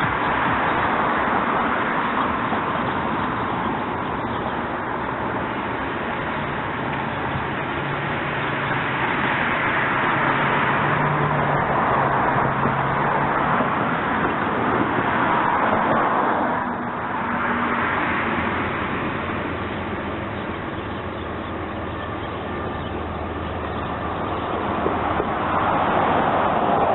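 CSX intermodal freight train rolling past: a steady rush of wheel and rail noise that swells and eases slowly, with a faint low engine hum in places.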